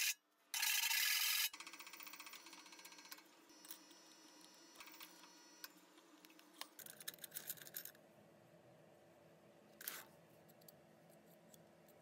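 Handheld rotary tool grinding the edge of a hole in stainless steel sheet: a loud burst about half a second in that lasts about a second, followed by a fainter steady high whine. Later come faint scattered clicks and scrapes of metal, with a short scrape near the end.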